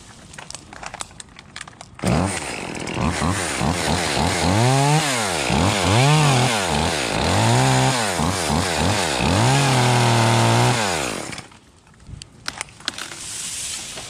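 Small gas chainsaw starting up about two seconds in, its engine speed rising and falling several times as the throttle is worked in the branches. It cuts off abruptly near the end.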